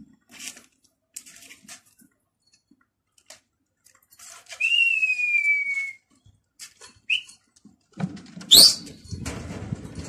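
A pigeon keeper whistling to his flying flock. First comes one long whistle, clear and sliding slightly down in pitch, about five seconds in; a short one follows around seven seconds, then a quick, sharply rising whistle, the loudest, near the end. A few faint clicks come early, and a low rushing noise fills the last two seconds.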